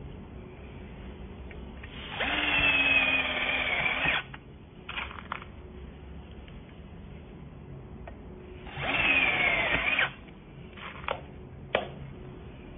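XCORT XDC08-12S two-speed drill driving self-drilling hex-head screws into a steel channel. It runs twice, for about two seconds and then just over a second, its whine dropping in pitch each time. Short trigger blips and a sharp click near the end follow the runs.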